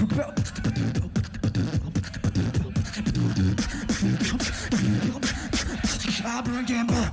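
Solo beatboxing: fast vocal percussion, with sharp snare- and hi-hat-like hits over a pulsing vocal bass line. Near the end the beatboxer holds a steady low buzzing tone with a wavering higher sound over it.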